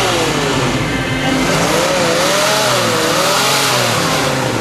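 Cruising cars passing with their engines running, and over them a single tone that rises and falls in pitch several times.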